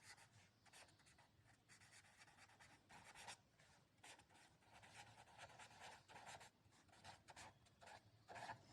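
Near silence, with faint, irregular scratching of writing.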